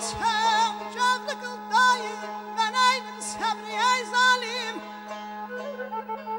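Azerbaijani mugham ensemble playing an instrumental passage: tar and kamancha carry a melody full of quick wavering ornaments over a steady low tone. About five seconds in, the ornaments give way to quieter held notes.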